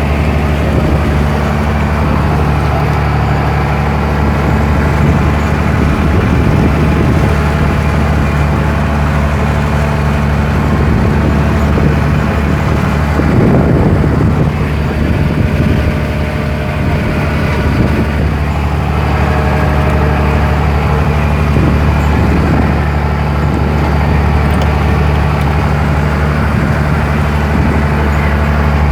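Boat engine running steadily, a loud, even low drone.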